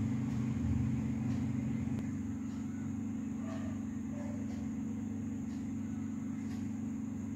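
A steady low hum that eases slightly about two seconds in, with faint soft ticks every second or so.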